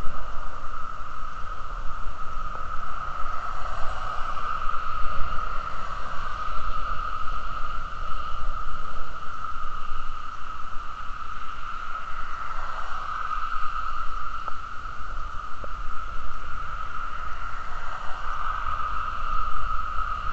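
Wind rumbling on the microphone of a camera mounted on a moving bicycle, over a steady high hum, with cars passing faintly on the adjacent road.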